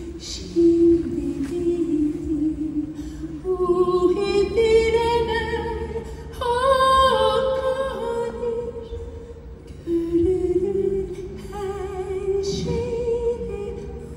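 Mezzo-soprano voice singing long held notes with vibrato, climbing step by step to its highest note about six seconds in, breaking off briefly near ten seconds, then climbing again.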